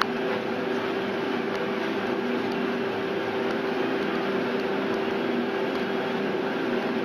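Steady machine hum with one constant low tone.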